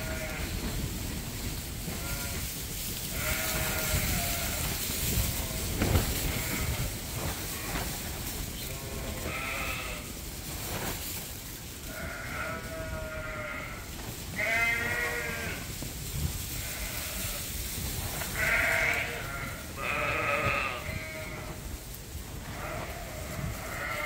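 Dorset lambs and sheep bleating: a dozen or so quavering bleats, each about a second long, some overlapping, over a low steady rumble.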